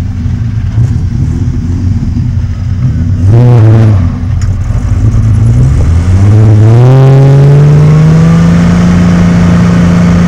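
A ute's engine idling, blipped once about three seconds in, then revved up from about six seconds in and held at high revs as the rear wheels spin on dirt in a burnout.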